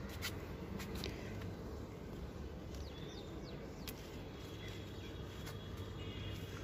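Outdoor ambience: a steady low rumble with a few short bird chirps about three seconds in and scattered light clicks.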